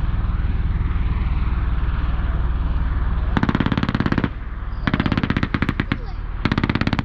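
Live machine-gun tracer fire from a V-22 Osprey tiltrotor. A steady low drone for the first three seconds or so, then three rapid bursts of automatic fire, each a second or so long.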